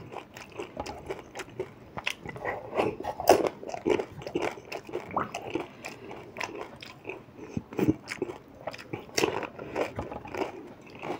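Crunching and chewing of pani puri: crisp hollow puri shells stuffed with whole green chillies, bitten and chewed with many irregular sharp crunches.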